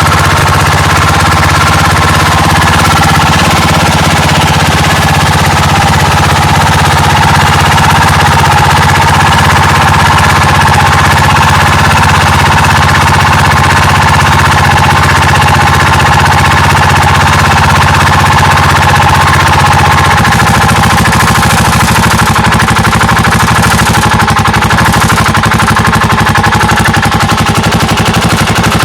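Yamaha Majesty SG03J scooter engine running with a loud, fast, continuous rattling noise, the rubbing sound ('擦れる音') that came on suddenly while riding; its cause is undiagnosed. The lower tone of the engine shifts about twenty seconds in.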